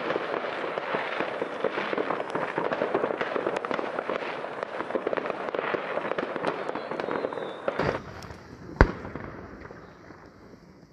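New Year's fireworks and firecrackers going off across a town: a dense, unbroken crackling and popping of many shots at once. The sound drops off abruptly about eight seconds in, and one sharp bang follows about a second later.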